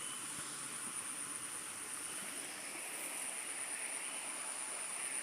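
Faint outdoor background: a low, even hiss with a thin, steady high-pitched whine running through it.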